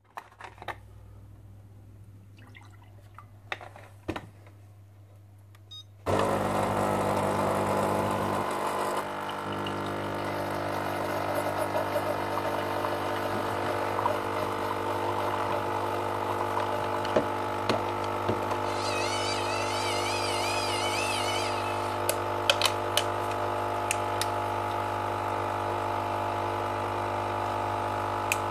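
A few faint clicks, then about six seconds in a Philips coffee pad machine's pump starts with a steady humming drone and keeps running as it brews coffee into a glass. A few light clicks come over it near the end.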